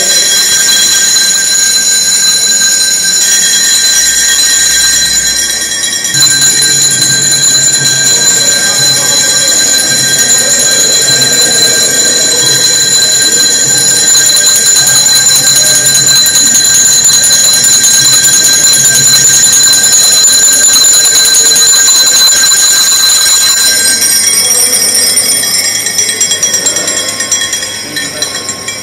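Bells ringing rapidly and without pause, a shrill, steady metallic jangle. It thins out over the last few seconds and drops away near the end.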